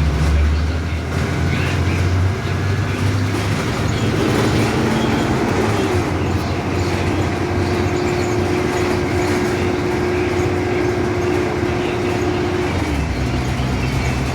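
Ride noise inside a 2015 Blue Bird Vision school bus on the move: engine drone with road noise and body rattle. A low engine hum fades after about two seconds, a steady humming tone holds through the middle, and the low hum comes back near the end.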